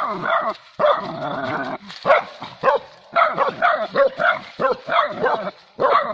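Dogs barking and yelping in a rapid, near-continuous string of calls with only brief breaks, set on a wild cat they have caught.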